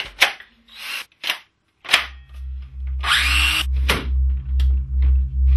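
Cordless power tool handled and briefly run: a few sharp clicks and knocks, and a short motor whir rising in pitch about three seconds in. A pulsing bass beat of music comes in about two seconds in, roughly two beats a second.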